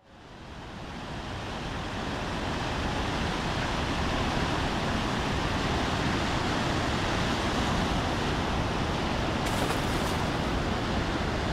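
Ocean surf sound effect: a steady wash of waves that fades in over the first couple of seconds and then holds even.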